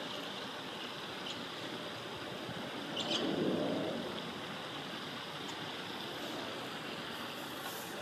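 Steady rushing background noise of a flowing river, with a louder low swell about three seconds in and a brief high sound at its start.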